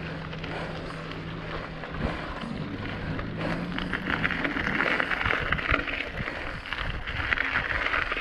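Tyres rolling over a loose gravel road, with wind on the microphone. A low steady hum in the first three seconds gives way to louder, rougher gravel noise from about four seconds in.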